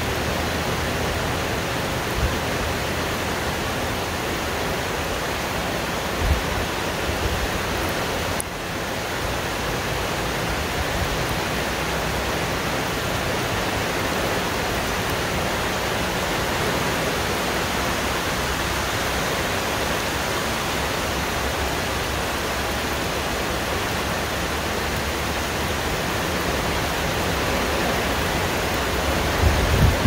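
Heavy rain falling steadily on forest foliage as an even hiss, with strong wind. A few brief low thumps of wind buffeting the microphone, the loudest near the end.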